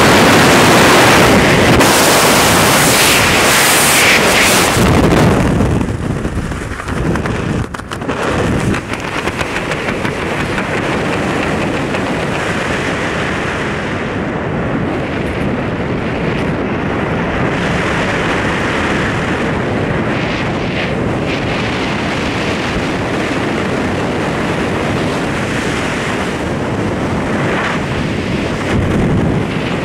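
Rushing wind on the camera microphone of a skydiver in freefall through cloud, loud and hissing. Around six seconds in it falters and drops off as the parachute opens, then settles into a steadier, duller wind noise under the open canopy.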